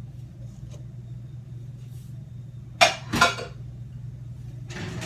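Pan of chicken being taken out of the oven: two sharp metal clanks close together about three seconds in, then a short rushing hiss near the end, over a steady low hum.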